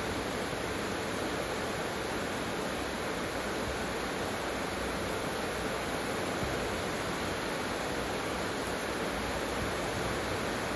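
Heavy rain falling steadily: an even, dense hiss of a downpour that does not let up.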